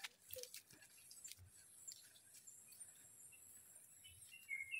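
Near silence: faint scattered ticks and rustles from walking on the trail, and a few short high chirps near the end.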